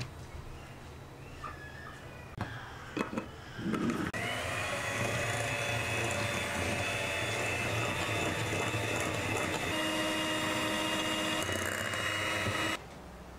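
Electric hand mixer beating eggs and sugar in a glass bowl: the motor switches on about four seconds in, runs with a steady whine while the beaters whisk, and cuts off suddenly near the end. Before it starts, a few short knocks and clinks.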